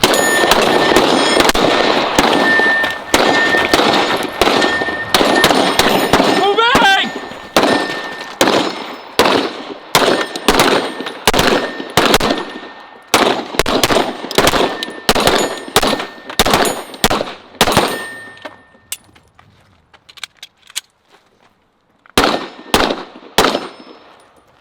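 Handgun shots fired in rapid strings, dense and overlapping for most of the first eighteen seconds, then thinning out. After a short pause there is a final string of about four shots near the end.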